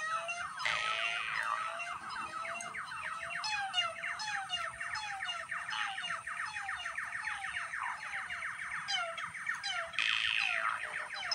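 Electronic synthesizer noise: a warbling tone that falls and rises over and over, under a dense run of fast rising chirps. There is a short burst of hiss about half a second in, and another near the end.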